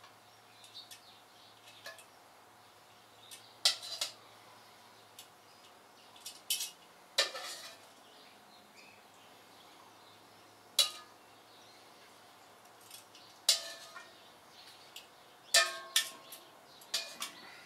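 Metal cooking utensil clinking against cookware: about a dozen irregular sharp clinks, some ringing briefly, as the cooked stir fry is handled.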